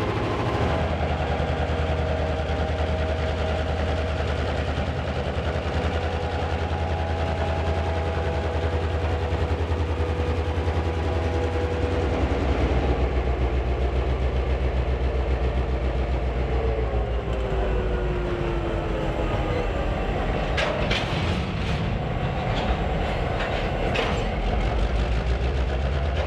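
Ex-Southern Pacific diesel-electric locomotive running with a steady low engine drone as it rolls past on yard track. Thin high tones from the wheels and rails slide down in pitch about two-thirds of the way through, and several sharp clanks come near the end.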